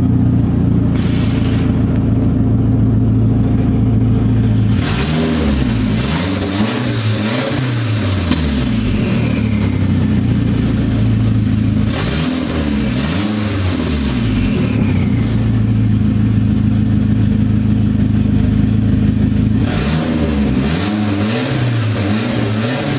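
Turbocharged car engine running through an open downpipe with no exhaust behind it. It idles steadily, then is blipped in short bursts of revs: a run of several about five seconds in, two more around the middle, and another run near the end, with a faint whistle falling away after the revs.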